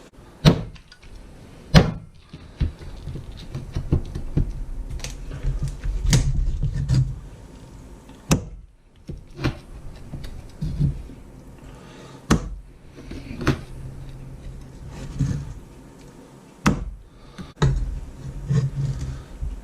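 Meat cleaver chopping through cooked crispy-skin chicken: about a dozen sharp chops, roughly one to two seconds apart, with softer handling noise between them.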